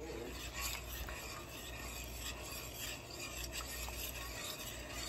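A spoon stirring sour cream into chicken paprika sauce in a stainless steel stockpot: continuous scraping and swishing against the pot.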